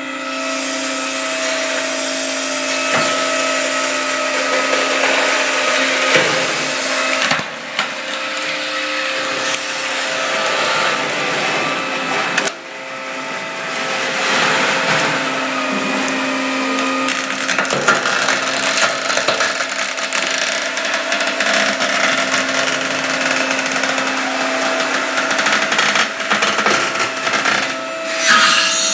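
Custom truck tire debeader running under load: a steady motor whine under harsh grinding and scraping as its hook pulls the steel bead out of a truck tire. The noise briefly drops twice, about seven and twelve seconds in.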